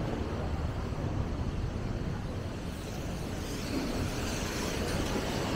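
City street traffic: motor vehicles passing with a steady low rumble, and more hiss from about halfway through.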